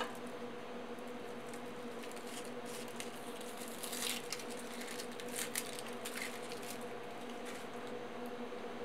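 Dry, papery onion skin being peeled off a yellow onion by hand: a few short crackling rustles, the strongest about four seconds in and again around five and a half seconds. A sharp knock right at the start as a chef's knife is set down on the wooden cutting board, over a steady hum in the room.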